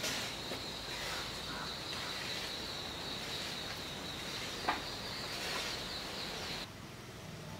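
Steady, high-pitched drone of insects with rural background noise, cutting off suddenly near the end. A soft tap of a wooden spoon a little past halfway.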